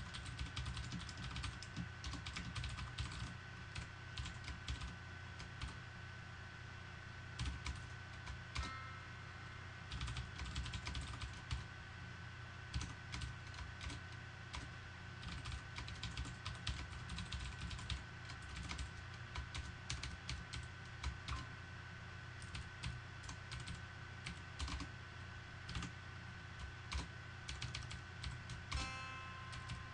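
Typing on a computer keyboard: irregular runs of quick key clicks with short pauses, over a steady faint high whine and low hum.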